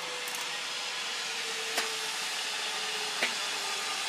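Zip line trolley whirring along the steel cable as a rider speeds away, a faint whine slowly falling in pitch over a steady hiss. Two sharp clicks about halfway through and near the end.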